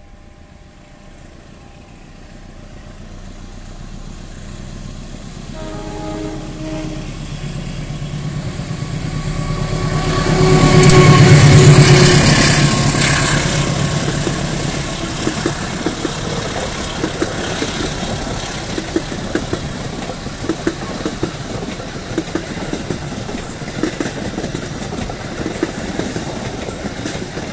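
A CC201 diesel-electric locomotive hauling a passenger train approaches and passes, growing louder to a peak about eleven seconds in, with its horn sounding briefly about six seconds in. The coaches then roll past with a steady clickety-clack of wheels over the rail joints.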